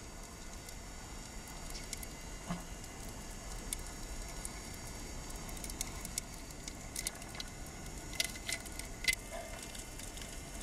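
Underwater ambience recorded on a reef: a faint steady hiss with scattered small clicks and crackles, a few sharper ones in the last few seconds.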